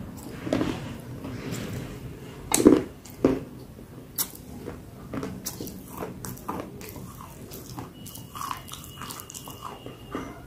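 A person biting into and chewing crunchy pieces of black clay close to the microphone. A few sharp crunching bites come loudest between two and a half and three and a half seconds in, then give way to quieter, continuous chewing clicks.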